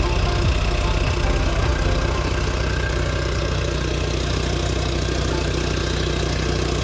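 Small tiller-steered outboard motor running at a steady speed, driving a mini inflatable boat along.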